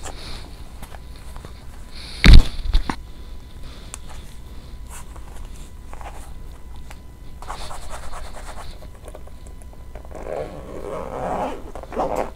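A marble-print makeup brush roll being rolled up and handled, then a glossy black pouch: rustling and crinkling of the material with small clicks, and one sharp bump about two seconds in, the loudest sound.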